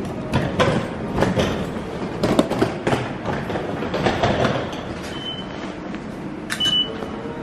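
Footsteps and knocks on a station floor, then an automatic ticket gate's IC card reader beeping twice as a card is tapped, a short high tone each time. Station background noise runs underneath.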